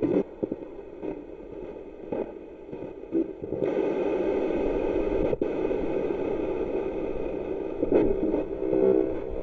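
Spirit box sweeping through radio stations: choppy bursts of static and station fragments cutting in and out, settling into a steadier hiss of static a few seconds in.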